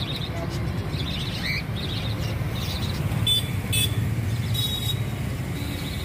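Caged pet birds chirping with short high calls. There are three louder, harsher calls a little past the middle, all over a steady low rumble.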